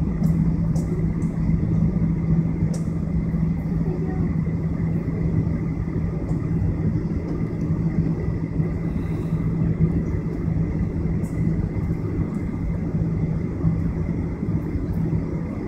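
Jet airliner cabin noise while taxiing: a steady low engine drone with a constant hum and a rumble underneath, and a few faint clicks.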